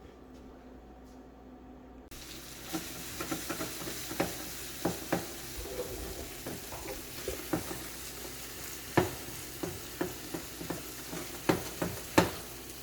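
Chopped seasoning frying in hot oil in a pan: a sizzle that starts suddenly about two seconds in, with a utensil clicking and knocking against the pan many times as it is stirred.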